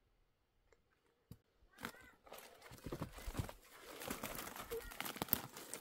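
Near silence at first, then quiet footsteps crunching over dry, rocky desert ground and brushing through dry scrub: an irregular run of crackles and scrapes.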